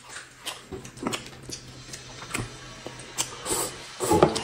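Close-miked eating: chewing and lip smacks heard as a string of short clicks, then a louder slurp of noodles about four seconds in.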